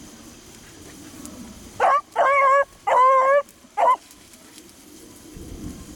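A beagle baying loudly four times in about two seconds: a short call, two longer drawn-out wavering bawls, then another short call.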